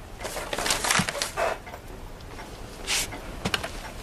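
Newspaper rustling and a few light knocks and clicks, with a short hiss about three seconds in.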